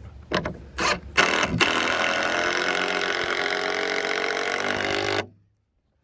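Cordless impact driver driving a long screw through the bottom plate of a wooden wall frame into the plywood floor: a few short trigger bursts, then a steady run of about three and a half seconds with the rapid rattle of the impact mechanism, cutting off suddenly.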